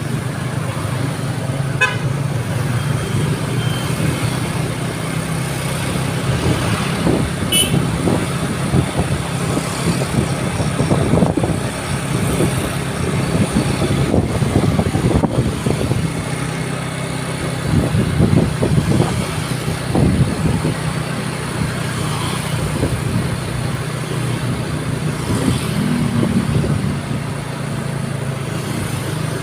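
Road vehicle noise: a large vehicle's engine running steadily amid traffic, with a few brief horn toots near the start.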